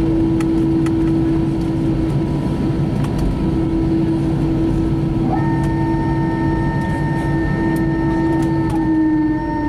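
Airbus A320 cabin noise while taxiing: a steady engine hum with a low rumble. About five seconds in, a second, higher steady whine joins in.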